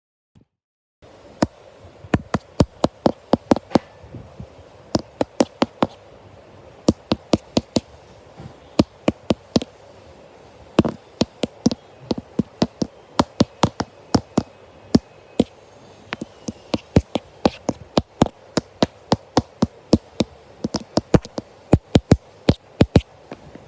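A long run of sharp taps or clicks, several a second at an uneven pace, starting about a second in.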